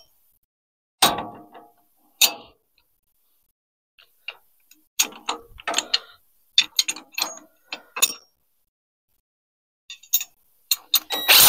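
Irregular metallic clicks and clinks of a hand tool tightening the freshly oiled axle bolt on a portable sawmill's track wheel: single clicks at first, a run of clicks in the middle, and denser, louder clicking at the very end.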